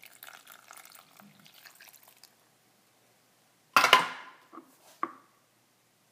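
Grapefruit juice pouring and dripping faintly into a blender jar of spinach and berries for the first two seconds. About four seconds in comes one loud hard knock with a short ring, like a glass or container set down, followed by two lighter knocks.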